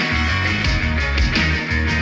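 Rock music with guitar, a strong bass line and a steady drum beat.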